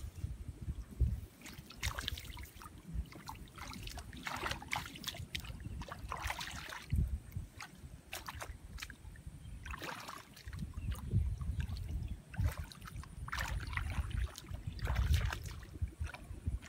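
Shallow water sloshing and splashing in irregular bursts as a barefoot person wades through a flooded field and stirs the water with his hands, over a low rumble.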